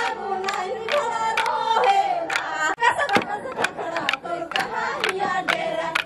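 Group singing of a Kurukh Karam dance song, with wooden dance sticks clacking together in a steady beat about two or three times a second.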